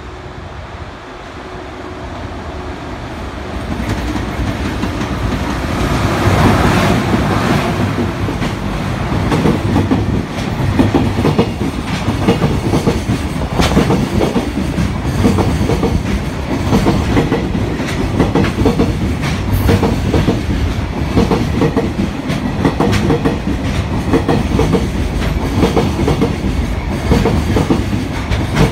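EH500 electric locomotive hauling a long container freight train past at speed: the noise grows as the locomotive approaches and passes about six seconds in, then the container wagons run by with a steady, fast clickety-clack of wheels on the rails.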